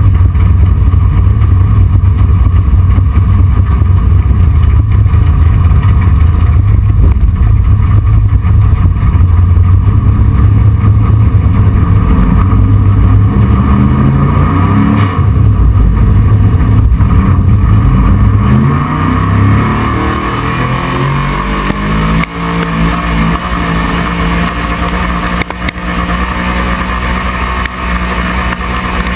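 Engine of a tractor/truck pulling vehicle running hard at full throttle, loud and steady, heard from a camera mounted on its body; from about 12 seconds in the pitch wavers and slides, and near 19 seconds the throttle comes off and the engine runs lower and quieter as the pull ends.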